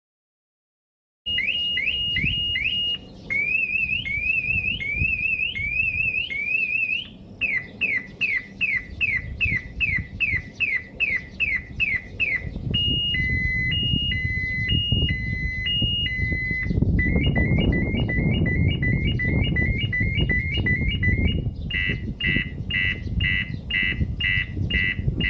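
Car alarm siren on a Maruti Suzuki Fronx Delta, starting about a second in and cycling through several tones: falling chirps, rising whoops, fast sweeps, a slow two-tone high-low, rapid chirps and finally fast pulsing beeps.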